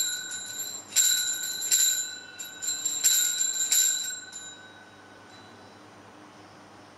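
Altar bells shaken in a series of rings at the elevation of the chalice, marking the consecration of the wine. A fresh shake comes about every second, and the ringing dies away about four and a half seconds in.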